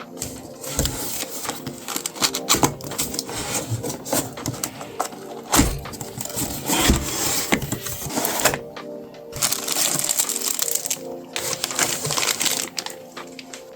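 Background music under a run of sharp clicks, clatters and rustling from PC parts and their packaging being handled.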